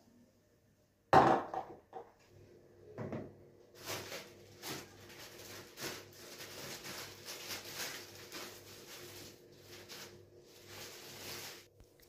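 A knock about a second in, then a thin plastic bag crinkling and rustling for several seconds as minced meat is emptied out of it onto rice in a plastic mixing bowl.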